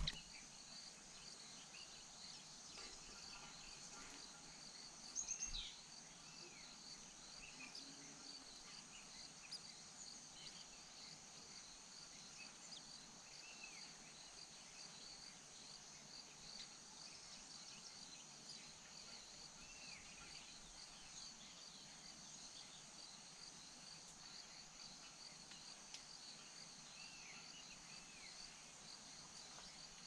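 Faint steady chirring of insects, crickets among them, with a few short chirps here and there and one brief knock about five seconds in.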